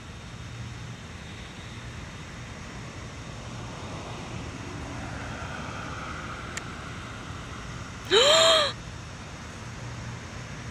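Steady low hum under an even background noise; about eight seconds in, a person lets out one short exclamation whose pitch rises and then falls.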